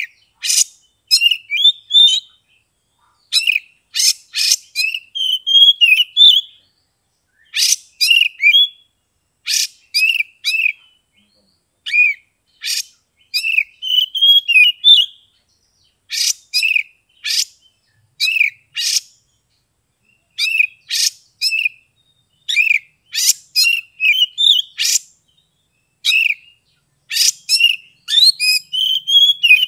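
Caged Oriental magpie-robin (kacer) singing loudly in full song: clusters of sharp, high notes and quick twittering phrases, with short pauses of about a second between them.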